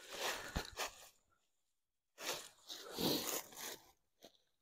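Footsteps crunching through dry fallen leaves, then, after a break of about a second, leaves rustling as a dead deer is grabbed by the leg and turned over on the leaf litter.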